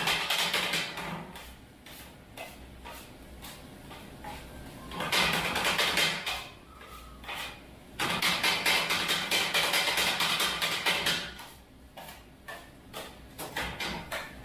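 Kottu roti being chopped on a hot iron griddle with two metal blades: rapid, rhythmic metal-on-metal clanging. It comes in loud spells at the start, about five seconds in and from about eight to eleven seconds in, with lighter tapping between.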